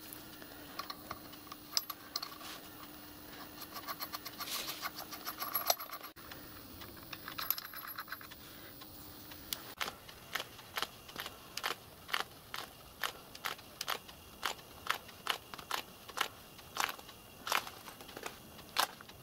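Metal parts clinking and scraping as metal rings and a steel spindle are handled and fitted on a small lathe headstock casting, some clinks ringing briefly. After about ten seconds, a steady run of sharp clicks, about two a second.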